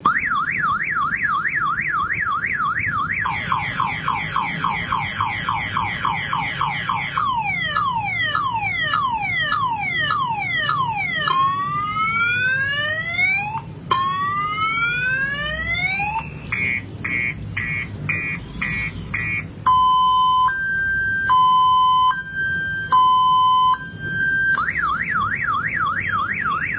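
Multi-tone car-alarm siren cycle: a fast warble, then repeated falling sweeps and chirps, a few slow rising whoops, a burst of rapid beeps, and a stepping high-low two-tone pattern. The fast warble returns near the end.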